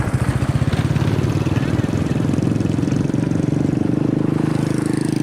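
Minibike engine running steadily, with a fast, even pulse.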